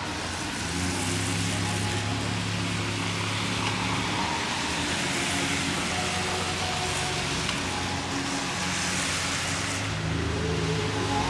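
Cars driving past on a wet street: a steady hiss of tyres on the wet road with low engine hum, swelling again near the end as a second car goes by.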